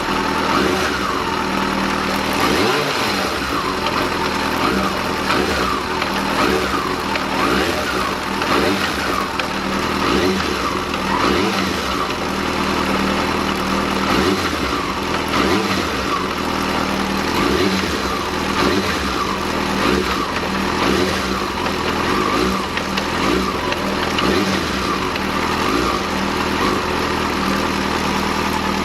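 Yamaha FZ6 S motorcycle's 600 cc inline-four engine revved in repeated short throttle blips, about one every second and a half. Sharp throttle openings like these are what bring out the knocking from the clutch basket near the front sprocket.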